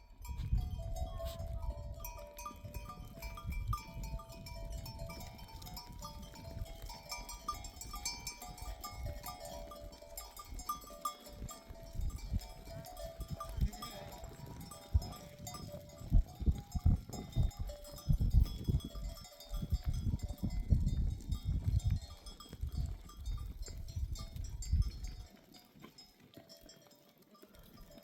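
A flock of sheep bleating over and over, many short overlapping calls, with livestock bells clinking. A heavy low rumble comes and goes underneath and dies away near the end.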